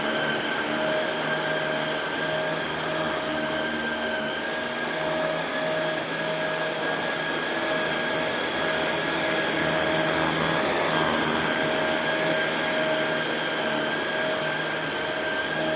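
Shark Rotator Pro Lift-Away NV500 upright vacuum cleaner running steadily while vacuuming carpet: a constant motor whine with several steady tones over a broad rush of suction air.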